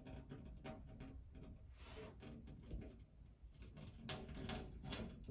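Faint trickle of water pouring from a quarter-inch plastic feed line into a metal catch pan, a simulated leak filling the pan, with a few light clicks near the end.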